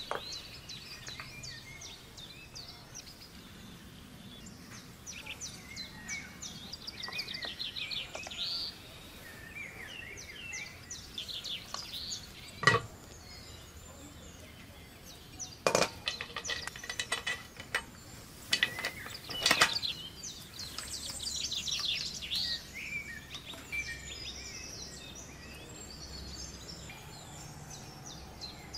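Songbirds chirping and singing continuously, with a few sharp clinks of cookware: one about halfway through, then a short run of clicks and knocks a few seconds later.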